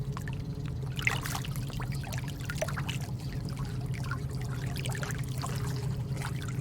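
Background ambience of bubbling, trickling water over a steady low drone.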